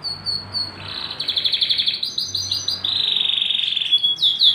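Domestic canary singing: rapid trills of repeated notes, a held whistle about three seconds in, then a run of quick down-sweeping notes.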